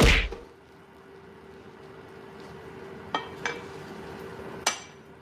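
A loud knock right at the start, then three light clinks of kitchenware, over a steady faint hum and hiss.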